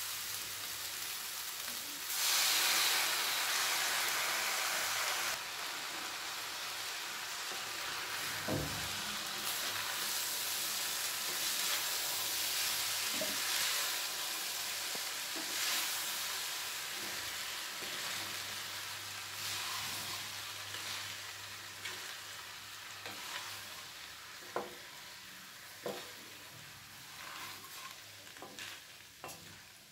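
Cooked rice stir-frying in a hot stainless-steel kadai with fried cauliflower and peas: a steady sizzle as it is tossed with a wooden spatula, louder for a few seconds near the start and fading toward the end. A few light knocks of the spatula on the pan.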